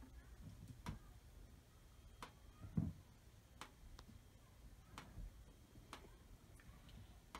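Near silence with faint, sharp ticks at roughly one a second, and a soft low bump about three seconds in.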